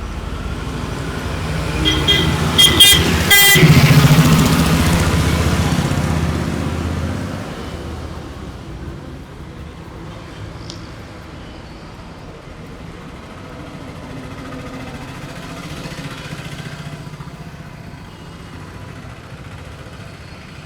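Road traffic passing close by: a motor vehicle goes past a couple of seconds in with a horn honking several short times, then a steady, quieter traffic noise with another vehicle passing faintly later on.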